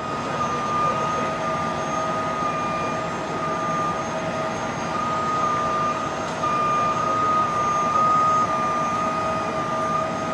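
Heavy rotator tow truck working a slow recovery lift, its diesel engine running steadily under load with a continuous high whine from the machinery.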